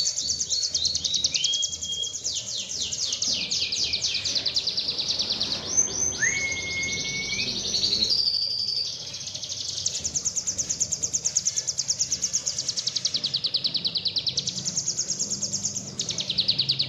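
Cigun songbird singing its fast, high-pitched rapid-fire 'tembakan' trills, strings of many quick repeated notes, broken by a few short whistled phrases and a rising whistle about six seconds in.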